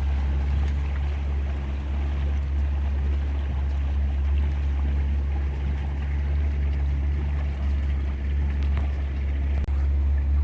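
A boat's outboard motor running steadily under way, a constant low drone that cuts out for an instant near the end.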